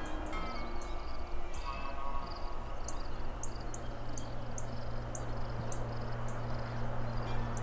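Crickets chirping in short, regular high chirps about twice a second. A steady low hum joins about two and a half seconds in.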